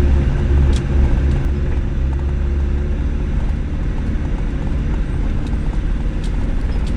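Volkswagen Transporter T4 camper van driving on a rough mountain road: a steady low engine and road rumble, with a few short clicks and knocks.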